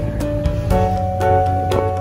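Background music: held instrumental notes over a steady beat.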